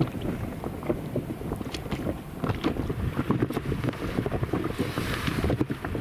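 Wind buffeting the microphone in uneven gusts, with small waves slapping against the side of an inflatable boat.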